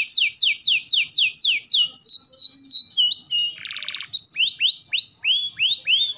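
Domestic canary singing continuously. It opens with a run of quick, high downward-sweeping whistles, about four a second, then gives a short fast buzzy trill about halfway through, followed by a string of upward-sliding notes.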